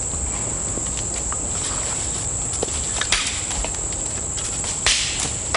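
Steady high-pitched chorus of insects. Over it come a few light rustles and snaps as a bonobo moves over leaf litter and sticks, the loudest a brief crunch about five seconds in.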